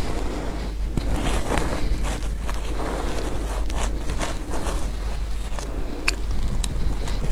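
Metal spoon scraping and digging into powdery shaved ice in a plastic tub: a steady crunchy crackle with many small clicks.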